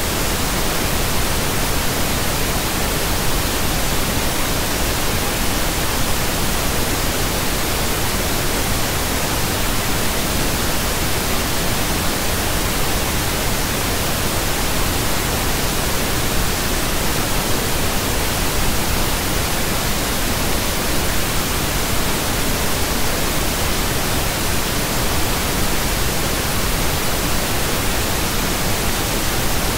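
Pink noise: a steady, even hiss that does not change, spread across all pitches, with the level falling evenly from the low end to the high end.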